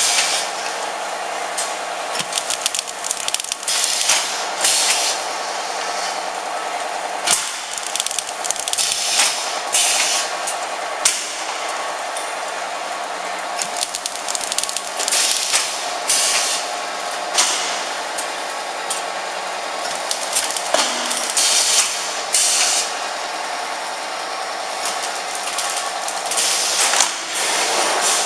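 Automatic POF shrink-film cutting and sealing machine running: a steady mechanical hum, broken every second or two by short hissing, clattering bursts as the machine cycles.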